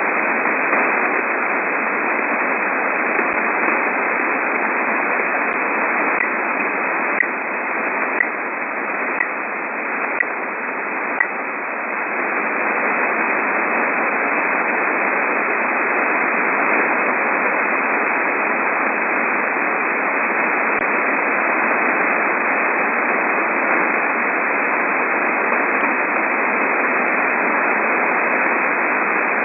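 Shortwave radio receiver tuned near 13 MHz, giving steady band hiss. From about six seconds in, a run of six short, high pips comes about once a second for five seconds, with a few faint isolated clicks elsewhere. These are the random ticking signals of unknown origin heard in the 12.9–13.2 MHz range.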